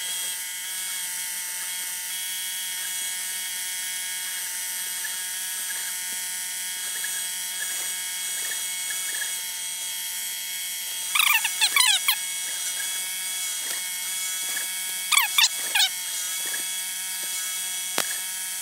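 A milling machine's spindle runs steadily with a constant whine while a half-inch end mill cuts a flat on a steel drill-rod connecting rod. Two short bursts of high, wavering squeaky chirps come a little past the middle, and there is a single click near the end.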